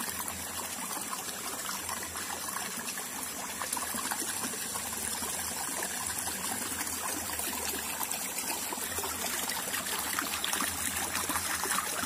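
Small forest stream trickling steadily.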